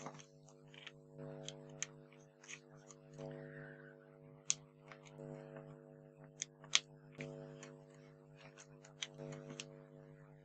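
Faint, irregular clicking and light scratching as a pointed tool and fingernails pick the backing paper off foam adhesive pads on a paper star, with a few sharper clicks, over a soft steady hum of sustained tones.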